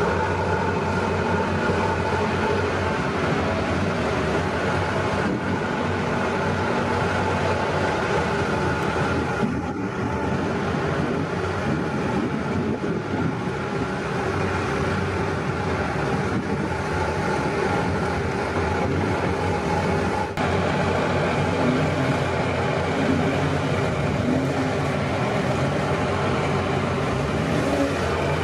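Lifted Jeep Cherokee's engine running at fairly steady revs under load as it drives through deep mud, its tyres churning the mud.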